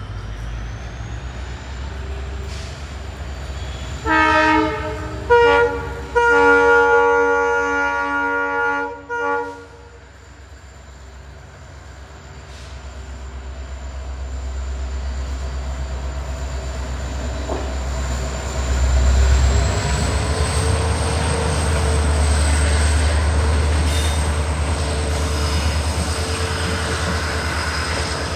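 WDP4D diesel locomotive with its EMD 16-cylinder two-stroke engine running under load while hauling an express. About four seconds in it sounds its horn: a short blast, a brief toot, then a long blast of about three and a half seconds. Afterwards the engine rumble and the rolling of the train grow louder as the locomotive passes, and the coaches roll by.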